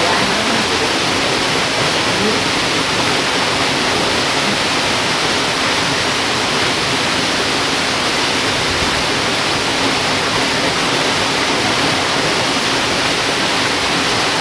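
Steady, loud rush of river water churning over rocks, an even hiss that does not change.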